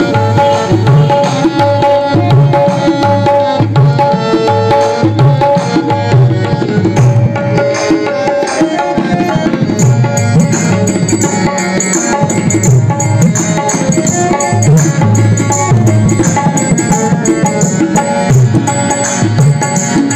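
Tabla played through a microphone and mixer in a steady rhythmic pattern: deep bass strokes of the bayan under ringing, pitched chanti strokes of the dayan, with the bass and chanti set by the mixer's EQ.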